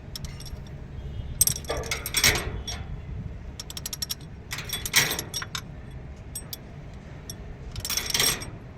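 Metal hand tools and engine parts clicking and clinking during engine repair work, with three louder scraping clatters: about a second and a half in, about five seconds in, and near the end.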